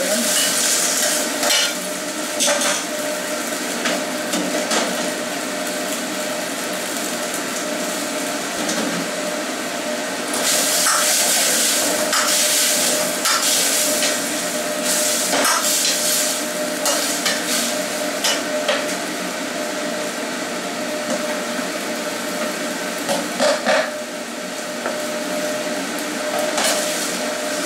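Sweet-and-sour sauce sizzling in a hot wok while a metal ladle stirs and tosses fried pork pieces, the ladle scraping and knocking against the pan. The sizzle swells louder at the very start, about eleven seconds in and again near the end.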